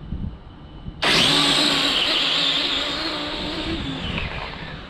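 Electric XTM RC drag car launching from a standstill about a second in: a sudden, loud motor whine with tyre noise that slowly fades as the car runs away. It is running on a 6S LiPo pack that turns out swollen and hot, which the owner blames for a lack of power.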